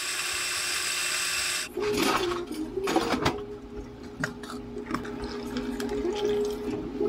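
Espresso grinder running as it dispenses grounds into a portafilter, stopping abruptly after under two seconds. After that, ice is scooped from an ice bin: scattered clattering knocks over a steady low hum.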